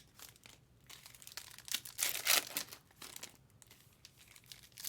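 Foil trading card pack wrappers crinkling and tearing as packs are opened and handled, in irregular bursts, loudest about two seconds in.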